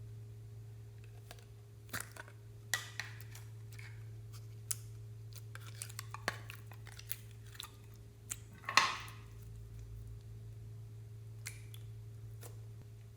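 Slime being handled and mixed: scattered sticky clicks and small crackles, with one louder crackle about nine seconds in, over a steady low hum.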